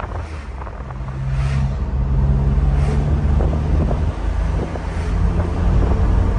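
Nissan pickup driven on a test drive with its freshly rebuilt manual transmission and new clutch: the engine runs under load with a steady low hum, getting louder about a second in and easing briefly a little after four seconds.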